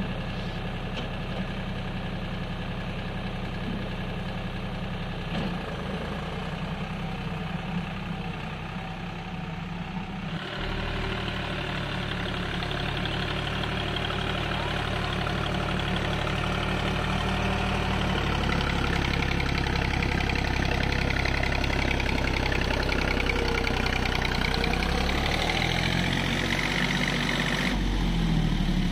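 Deutz-Fahr tractor's diesel engine running steadily while pulling a laser land leveller through loose soil. The sound changes abruptly about ten seconds in and grows louder after that.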